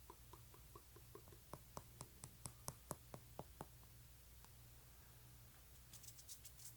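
Faint, close-miked ASMR clicks and taps: a run of soft sharp clicks about four a second through the middle, then a quick cluster of higher, crisper clicks near the end.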